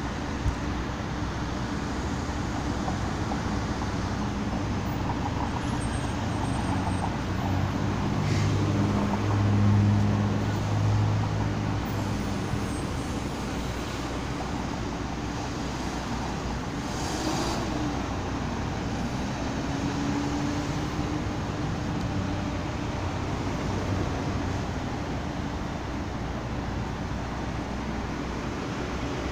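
Steady city street traffic noise with a constant low hum. A heavier vehicle's low rumble swells and fades about eight to eleven seconds in.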